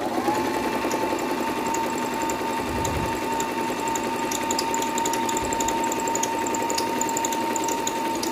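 Monica Merritt 5200 electric sewing machine running fast and steady, stitching a row through fabric. Its motor whine rises to speed just as the sound begins, then holds one steady high pitch.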